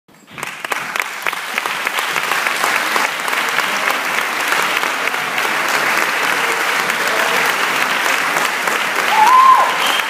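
Audience applauding steadily, with a short high cry that rises and falls near the end.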